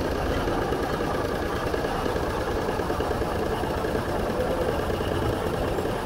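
Komatsu D85A-18 bulldozer's diesel engine running steadily.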